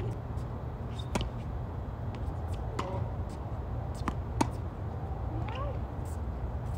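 Tennis rally on a hard court: racquets striking the ball and the ball bouncing, a sharp pock every second or so, the loudest about four and a half seconds in when the near player hits a backhand. Under it runs a steady low rumble.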